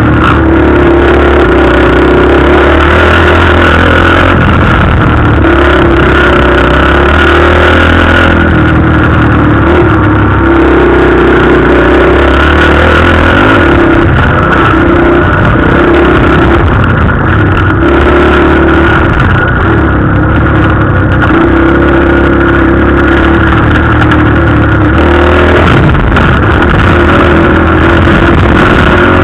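Dirt bike engine heard close up from a helmet camera while riding a motocross track, loud and revving up and easing off again and again, every couple of seconds, as the throttle is worked through the turns.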